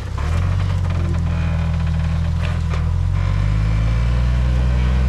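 Jeep XJ buggy's engine running under load as it crawls through a dirt rut. The revs dip briefly at the start, then hold fairly steady with small rises, and a few short knocks come through.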